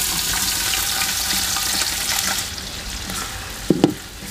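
Sliced onions sizzling in hot cooking oil in an aluminium pot, a dense frying hiss that eases off after about two and a half seconds. A little before the end, a wooden spoon stirring them knocks twice against the pot.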